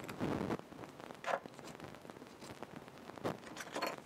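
A steel awl rasping in a slit in a thin wooden disc, widening it: four short scrapes, the first and longest at the start.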